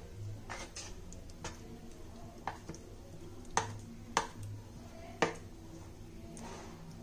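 Boiled potato pieces being mixed into a thick maida and cornflour batter in a bowl, giving irregular sharp clicks and soft wet squelches.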